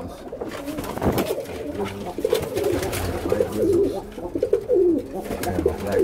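Tippler pigeons cooing, several birds' coos repeating and overlapping, with a couple of knocks.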